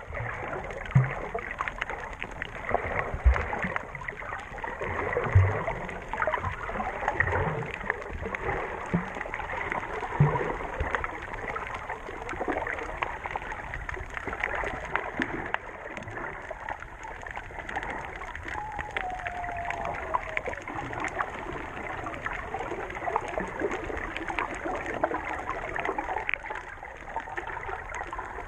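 Underwater sound picked up by a GoPro Session camera while snorkeling over a coral reef: a dense crackling, bubbling water noise, with a few dull low thumps in the first ten seconds.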